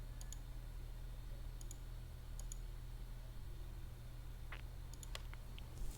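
Light clicks of a computer mouse and keyboard: a few faint ones, then several sharper clicks near the end, over a steady low hum.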